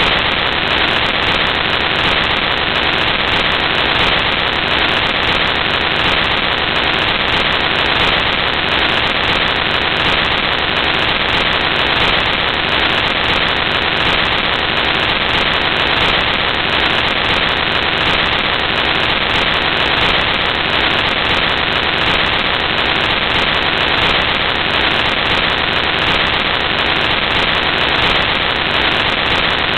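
Loud, steady static hiss with no breaks or changes, a fault in the recording's sound that covers anything else.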